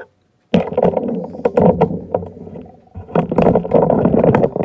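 Camera being picked up and repositioned: loud handling noise of hands rubbing and knocking against the camera and its microphone, with many sharp clicks, starting about half a second in and easing briefly before starting again.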